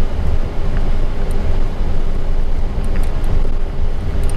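Steady low rumble of an Airbus A320 cockpit on the ground, engines running at idle, with a faint steady hum running through it.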